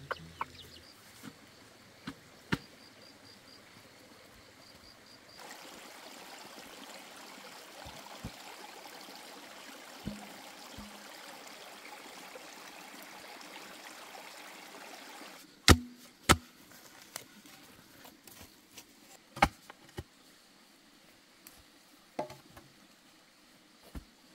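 A steady outdoor hiss through the middle, then several sharp, hollow knocks as long bamboo poles are handled and knocked against each other.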